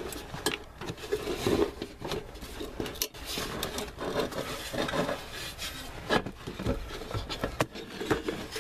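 Steel mounting plate carrying the engine and transmission control computers being wrestled out from under the dashboard: irregular rubbing and scraping against carpet and trim, with a few sharp metallic knocks.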